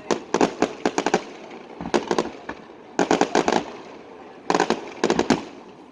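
Aerial fireworks exploding in quick volleys: four clusters of sharp bangs, each a rapid run of several reports, spread about a second apart.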